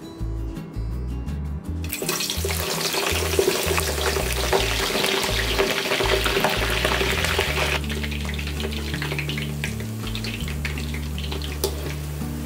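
Eggplant chunks dropped into oil at about 160 °C in a wok set off a sudden loud sizzle about two seconds in. After about six seconds it settles into a quieter bubbling, with scattered crackles as the pieces fry.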